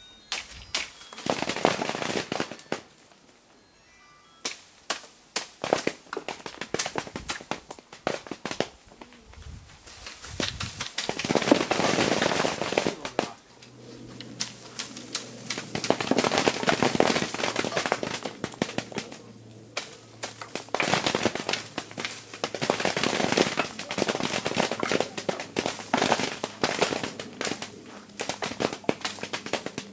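Cherry plums raining down onto a plastic sheet as the tree is shaken: bursts of many small, rapid hits lasting a few seconds each, with short lulls between. A steady low drone comes in about halfway through.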